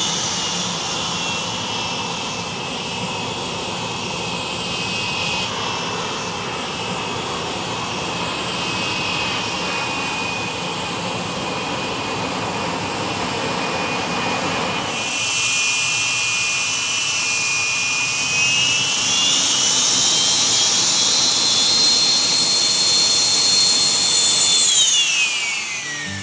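Aermacchi MB-339PAN jet's Rolls-Royce Viper turbojet running with a steady high whine; after a cut about halfway through, the whine rises in pitch, holds, then falls away near the end.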